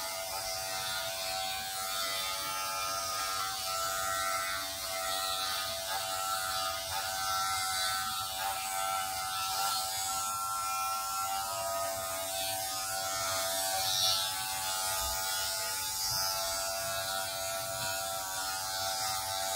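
Electric shaver running with a steady buzzing hum as it is passed over a man's head, shaving it bald.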